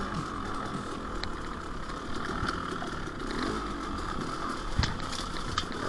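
KTM 300 XC-W two-stroke dirt bike engine running at low speed, its pitch rising and falling with the throttle, with sharp knocks from the bike over rough ground and the loudest knock near the end.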